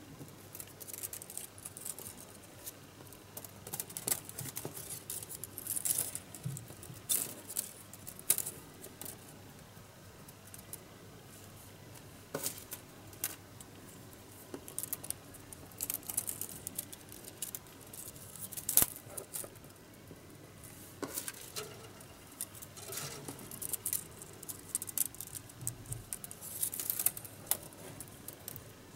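Thin bamboo-skin strips being woven by hand in a two-over-two twill on a wooden board: irregular light clicks, ticks and scratchy rustles as strips are slid and threaded over and under one another, with a few sharper clicks scattered through.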